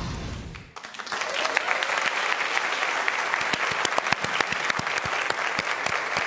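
Studio audience applauding, the clapping swelling in about a second in as a low rumble dies away.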